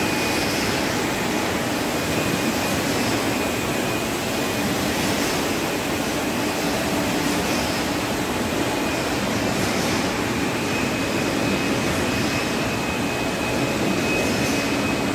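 Steady mechanical noise of a running Tetra Pak carton packaging line, its conveyors carrying milk cartons, with a faint thin whine that comes and goes.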